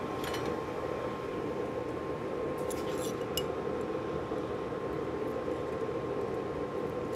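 Light metallic clinks of steel needle-nose pliers against the anvil: one just after the start and a short cluster about halfway through. A steady low rushing noise runs underneath.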